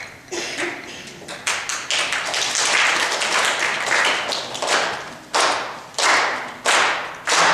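Rhythmic hand percussion with no pitched notes: sharp claps or shaker strokes, each trailing a short hiss, growing louder. Near the end it settles into a steady beat of strong strokes a little more than one a second.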